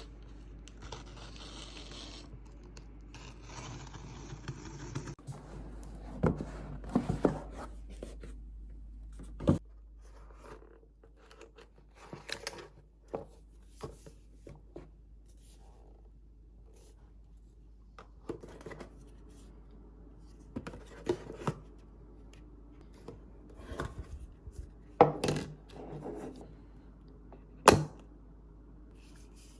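Small objects being handled at close range: rustling, like paper or plastic packaging, in the first five seconds, then scattered taps, clicks and knocks, a few of them sharp and loud.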